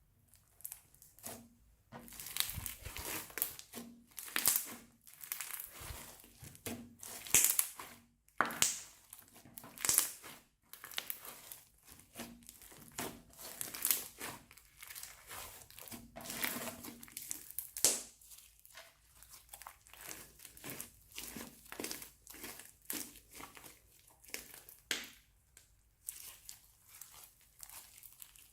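Slime and plastic piping bags being squeezed and worked by hand: irregular crinkling and crackling, with sharper loud crackles every second or so, starting about two seconds in.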